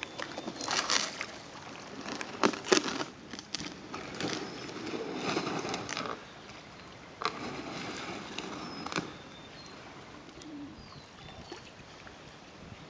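Paddle strokes splashing and water sloshing around a small boat, a run of irregular splashes for about nine seconds, then quieter lapping water with a few faint bird chirps.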